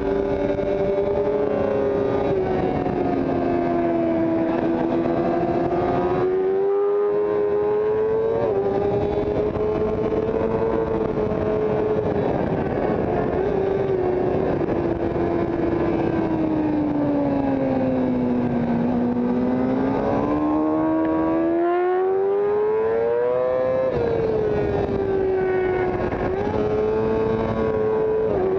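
Sport motorcycle engine heard from onboard at speed, its note rising and falling with throttle and speed, with sharp drops in pitch near the end, over wind rush.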